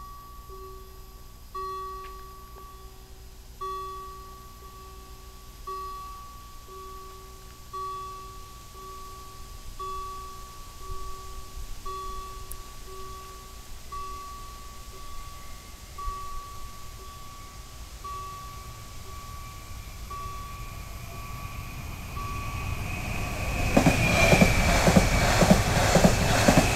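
German level-crossing warning bell ringing over and over in a steady repeating tone pattern while the lights flash. About 23 seconds in, a passenger multiple-unit train passes over the crossing, and the rush of its wheels on the rails becomes much the loudest sound.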